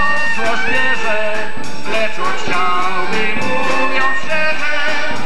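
Live folk-band music: a man singing a Polish song into a microphone over drums and cymbal.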